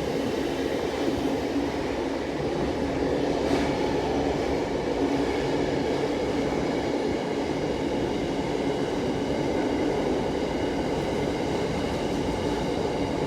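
Electric train running, a steady rumble with faint steady high-pitched tones above it, unchanging in level throughout.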